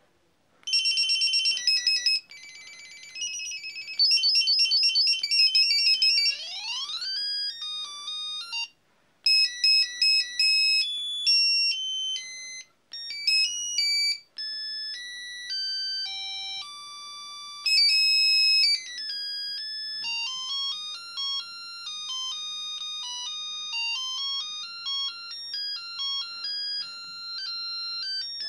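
Samsung R200s mobile phone playing its preloaded ringtones one after another: first a fast trilling ring pattern ending in a rising sweep, then several short beeping melodies with brief breaks between tunes.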